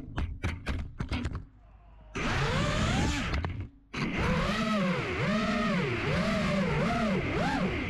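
FPV racing quadcopter's electric motors and propellers whining, the pitch swinging up and down over and over as the throttle is worked in flight, from about two seconds in. Before that, a run of sharp clicks.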